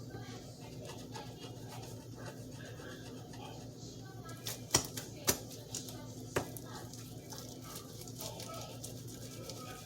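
A few sharp clicks and taps, the loudest about halfway through, over a steady low hum and faint background voices.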